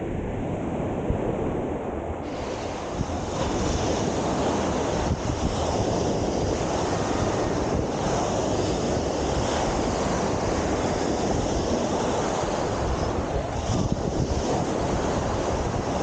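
Small ocean waves breaking and washing up the sand, with wind rumbling on the microphone. About two seconds in, the hiss of the surf gets fuller.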